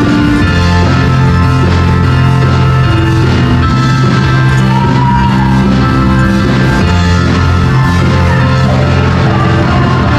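Live praise band playing an upbeat worship song in the key of F, loud and steady with a strong bass line.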